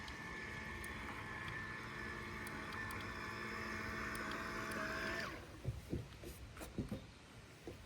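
Small electric motor of a toy RC boat whining steadily, then cutting off about five seconds in; a few faint knocks follow.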